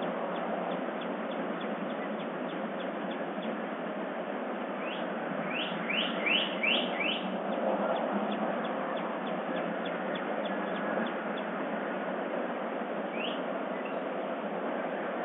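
Wild birds of the dawn chorus calling: faint quick chirps, then a run of five rising notes in quick succession midway and one more near the end, over a steady background hiss.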